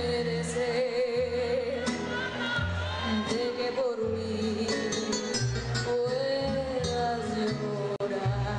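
Live Mexican ranchera duet: a man and a woman singing together into one microphone, holding long notes with vibrato over a band with a steady bass line.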